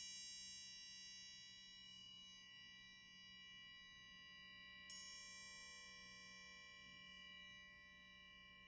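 Faint bell-like chime ringing and slowly dying away, struck again about five seconds in.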